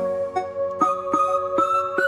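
Instrumental background music: held tones with a few notes struck one after another in the second half.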